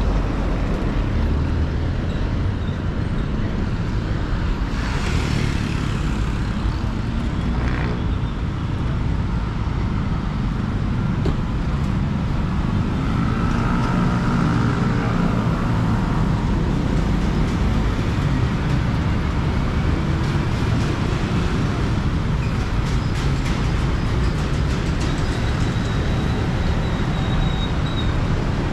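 Road traffic noise from motor vehicles: a steady low engine rumble with road noise, and an engine note that rises and falls about halfway through.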